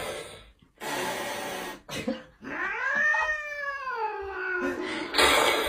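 A cat's long, drawn-out meow that rises and then falls in pitch, coming about two and a half seconds in after a short burst of noise.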